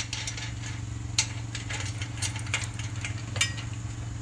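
A few scattered metallic clinks of a wrench on the rear axle nuts of a surrey bike as the wheel's bolts are loosened, over a steady low hum.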